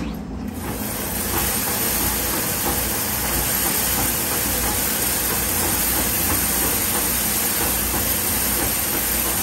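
An 1835 throstle spinning frame running, driven by turning its wheel by hand: its rows of spindles and rollers whir with a dense, rapid clatter. The noise builds up over the first second as the machine comes up to speed, then holds steady and loud.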